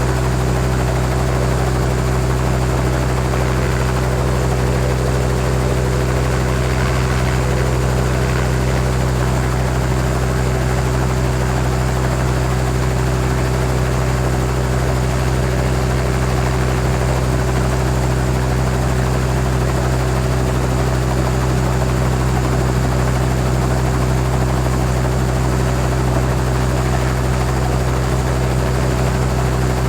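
Helicopter running steadily, heard from outside: a constant low rotor and engine drone with no change in pitch or loudness.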